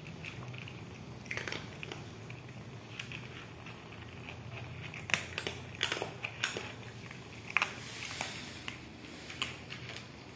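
Several cats crunching dry kibble, with irregular crisp crunches that come thickest in the middle of the stretch. A low steady hum runs underneath.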